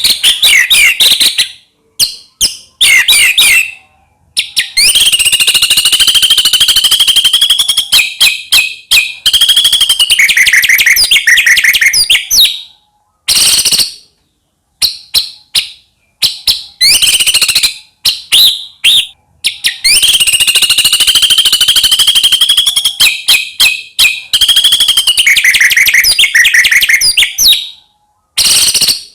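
White-rumped shama singing loudly: varied whistled phrases and long fast trills, broken by short pauses.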